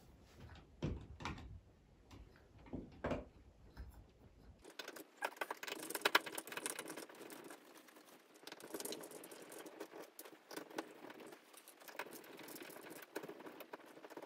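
Faint clicks, light scraping and rattling of a hand screwdriver working at a ceiling light fitting, undoing the screws that hold the old fitting to the ceiling. A few dull knocks come first, then a steady run of small clicks.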